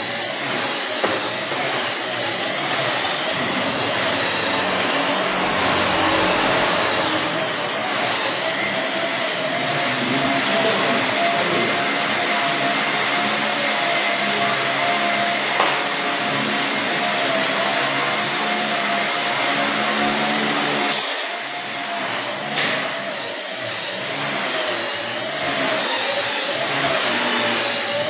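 Blade Nano CP X micro collective-pitch RC helicopter in flight: a high electric motor and rotor whine whose pitch wavers up and down as the throttle and collective are worked. About three quarters of the way through the whine dips briefly, followed by a sharp tap.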